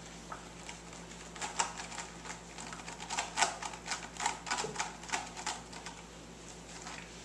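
Cats playing on a carpeted cat tree: a quick, irregular run of clicks and taps, thickest from about a second and a half to five and a half seconds in.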